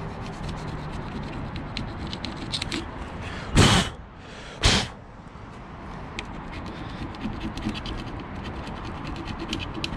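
Hand tool scraping and picking old foam and dried weather-stripping adhesive out of a car door's weatherstrip channel, a steady scratching with many small ticks. Two short, loud bursts of noise about a second apart break in near the middle.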